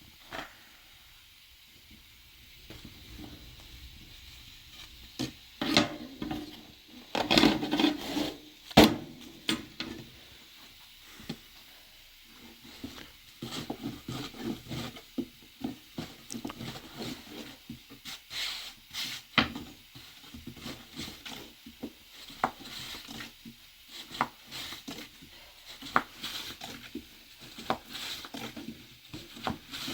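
Irregular knocks, clinks and scraping of dishes, pots and utensils being handled, louder for a few seconds about a quarter of the way in.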